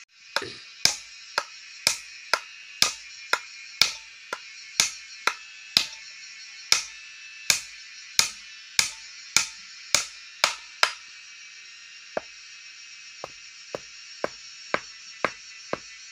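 Hammer driving a nail into the wooden plank top of a stool, about two sharp blows a second for some ten seconds, then lighter, spaced taps near the end.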